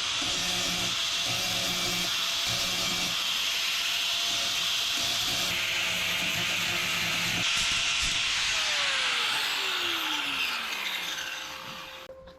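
Angle grinder running against sheet steel in a steady, hissing grind. Near the end it is switched off, and its motor whine falls in pitch as the disc spins down.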